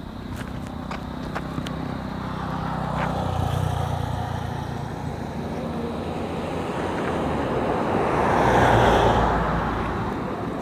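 Motor engines running: a steady engine hum that swells twice, once about three seconds in and louder about nine seconds in.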